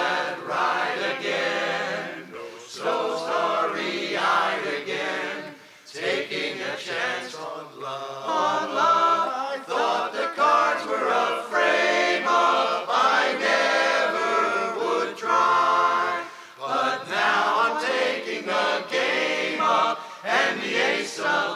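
Men's barbershop chorus singing a cappella in close four-part harmony, with sustained chords broken by short pauses between phrases.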